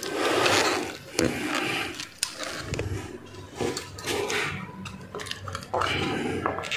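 Close handling noise: a work-gloved hand brushing and rubbing against the wall and the meter housing, with scattered small clicks and knocks.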